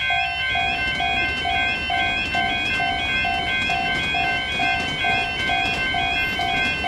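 Synthesized Japanese level-crossing warning bell clanging about twice a second, over a repeating electronic jingle melody. A low rushing noise runs under it from about half a second in.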